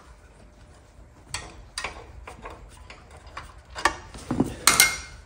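Irregular metallic clicks and taps of hand work on the engine's oil-gallery fitting as the oil pressure gauge is unscrewed, with a few louder knocks near the end.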